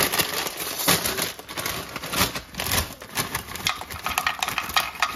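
Rapid, dense clicking and clatter of dishes and utensils as food is served into bowls.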